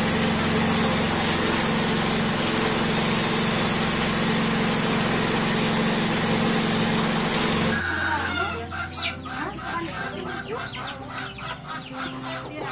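A loud, steady machine drone with a hum, which cuts off suddenly about eight seconds in. Then chickens cluck, over a quick rhythmic tapping of about three to four strokes a second.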